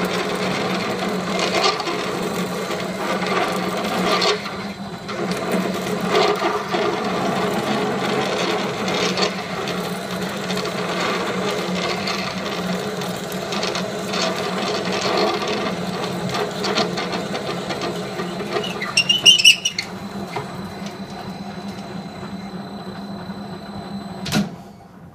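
Metal lathe running with a steady hum while a large twist drill, held in a tailstock chuck, cuts into a 1018 steel bar, scraping and grinding as the chips peel off. A brief high squeal from the cut comes about 19 seconds in. Near the end a click is heard and the lathe runs down to a stop.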